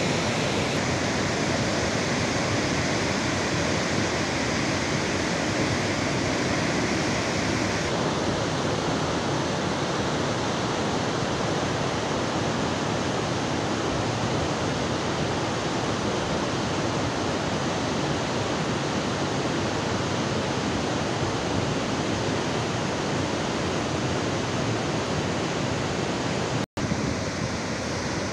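Muddy floodwater laden with rock and debris rushing in a steady, unbroken roar of churning water. The sound cuts out for an instant near the end.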